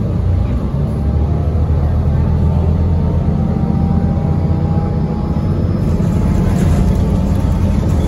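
Cabin sound of a 2017 Gillig BRT transit bus underway: a steady, loud low rumble of engine and road, with a faint whine that slowly rises in pitch.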